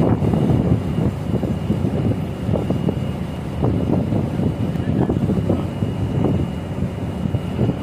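Wind buffeting the microphone: a loud, irregular, fluttering rumble, with a faint steady high whine underneath.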